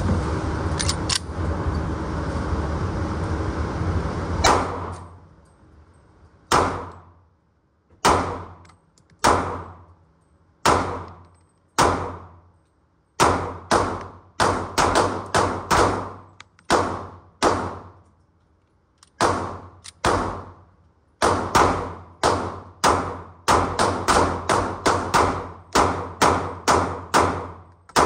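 Handgun shots fired one after another: about thirty sharp reports, each with a short echoing tail. They start slow, about one every second or so, then come in quicker strings of two or three a second. A steady rushing noise runs for the first four seconds or so and cuts off with the first loud shot.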